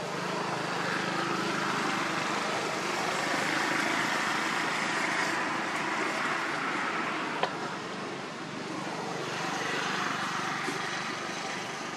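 Road traffic noise that swells and fades twice, with one sharp click about seven and a half seconds in.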